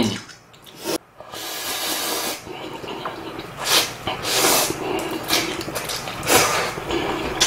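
A person slurping instant ramen noodles in broth: a long slurp about a second in, then several shorter slurps with quieter eating noise between.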